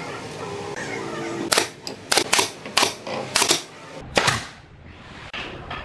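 A quick run of sharp snaps or knocks, about six in two seconds, then a single loud one about four seconds in, from work on a wooden countertop form.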